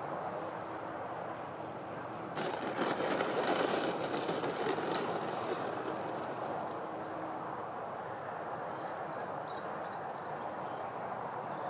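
Freewing Su-35 RC jet landing on a dirt runway. About two and a half seconds in, a rough, crackly rattle of its landing gear rolling over the dirt comes in, loudest for about two and a half seconds. It then settles to a steadier rolling noise as the jet slows on the strip.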